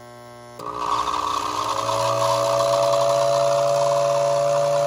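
Lionel whistle tender blowing. Its small motor-driven fan spins up with a rushing whir about half a second in. A steady two-note whistle tone comes in about a second later and holds, set off from the transformer's whistle control.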